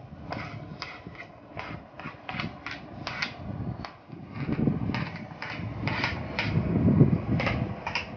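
Diced sweet potato cubes dropping and tapping into a stainless steel steamer basket as a plastic spoon scrapes them off a plastic cutting board: a string of irregular small clicks, with heavier dull knocks about halfway through and again near the end.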